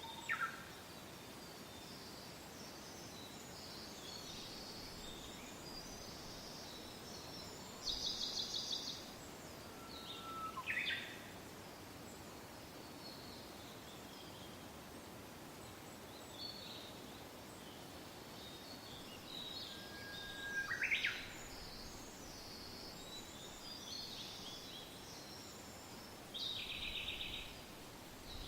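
Soft steady wind with several birds calling and singing over it: scattered short chirps, a dry trill about eight seconds in and another near the end, and two loud, sharp downward-sweeping calls.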